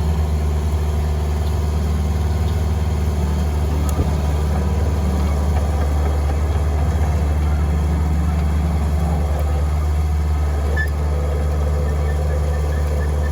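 Diesel engine of a LeeBoy 8500D asphalt paver idling steadily, with a single knock about four seconds in.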